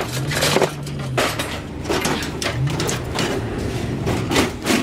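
Repeated knocks and clatter of household junk being handled and tossed, with a low hum or strained voice under it in places.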